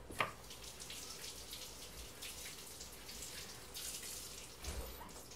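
Kitchen tap running faint and steady into the sink as a small hermit crab dish is rinsed under it, with a light knock just after the start and another near the end.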